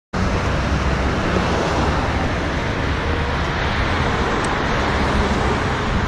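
Steady outdoor noise of road traffic rumble mixed with wind on the microphone, cutting in suddenly at the start.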